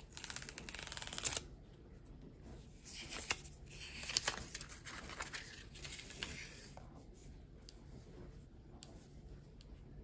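Hands handling a Laifen LF03 hair dryer, the dryer switched off: skin rubbing and scraping on its body and the grille at its base, with small clicks. The sound comes in two stretches, one in the first second and a half and another from about three to six and a half seconds in.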